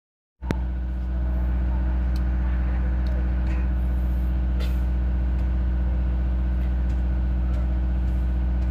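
A steady low hum from a running engine or motor, starting abruptly after a brief moment of dead silence and holding the same pitch throughout, with a few faint ticks over it.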